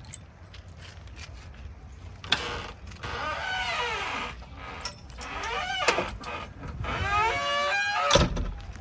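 A machine's motor whining, its pitch gliding up and down in several stretches as it works, over a low steady rumble with scattered clicks. A single sharp clunk sounds near the end.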